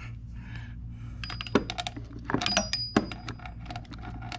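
Hand tools and a steel bolt clinking and rattling as the serpentine belt tensioner's mounting bolt is screwed back in: irregular sharp metal clinks, a couple with a brief ringing note, over a steady low hum.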